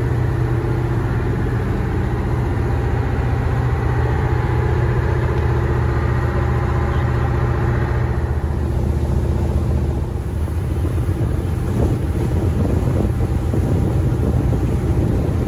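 A vehicle's engine running steadily, a low hum with a constant pitch. The higher part of the noise drops away about halfway through.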